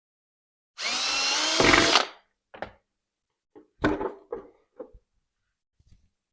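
Power drill running for about a second, its whine rising in pitch, most likely drilling a hole through the plastic bucket. A few short knocks and clatters follow.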